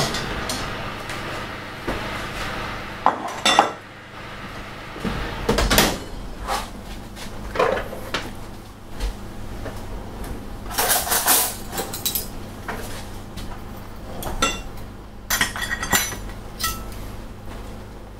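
Kitchenware being handled: scattered knocks and clinks of bowls and dishes as cooked chicken pieces are taken from a bowl and put into a ceramic serving dish, some clinks ringing briefly.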